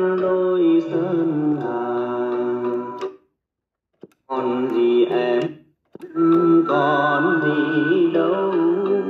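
A Vietnamese song plays through a Crown CRC 9950 radio cassette recorder's speaker. The music cuts out twice: for about a second roughly three seconds in, and briefly again near six seconds, while a button on the set's front is pressed.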